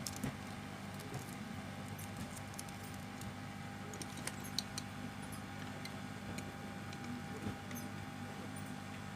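Small scattered metallic ticks and scrapes of hand tools working on a keypad phone's circuit board, as a small part is being prised off, over a steady low electrical hum.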